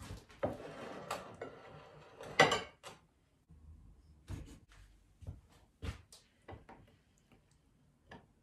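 Kitchen handling noise with a loud clack of a plate or board set down, then a kitchen knife knocking on a wooden cutting board in short, irregular strokes as tomatoes are sliced.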